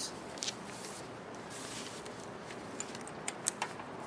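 Steady background hiss with a few light clicks, one about half a second in and a pair about three and a half seconds in, from small pump seal parts being handled and fitted by hand.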